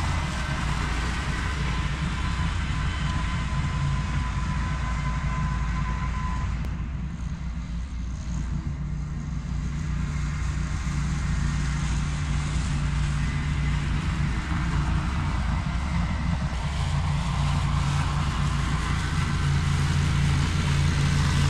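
Ventrac compact tractor's engine running steadily under load while its Tough Cut brush mower cuts overgrown grass. The sound dips briefly about a third of the way in and then builds back up.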